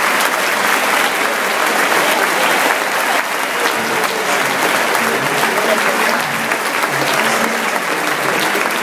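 A large stadium crowd applauding steadily, with scattered voices in the mix.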